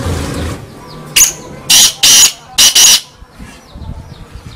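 Black francolin calling: one short note, then three loud, harsh, grating notes in quick succession over about two seconds. A brief noisy rush comes just before.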